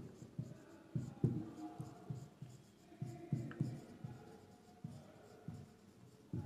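Marker pen writing on a whiteboard: a faint, irregular run of short strokes and taps as words are written out, with the odd light squeak.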